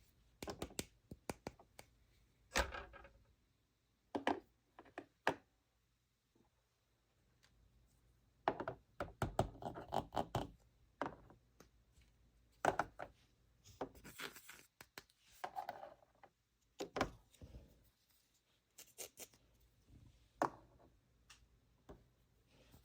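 Small toy playset pieces handled and set down: irregular clicks and light knocks, with stretches of rustling and scraping about a third of the way in and again past the middle.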